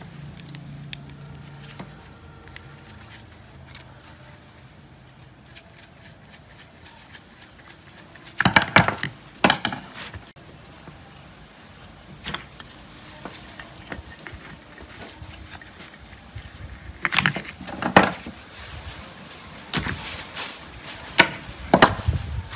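Gloved hands handling electrical wires, crimped ring terminals and small switch parts: scattered clicks and rattles, with three louder spells of clattering, about a third of the way in, past the middle and near the end.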